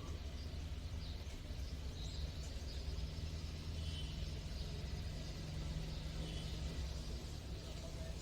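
Ashok Leyland Dost engine idling steadily, a low even running sound, with faint bird chirps over it.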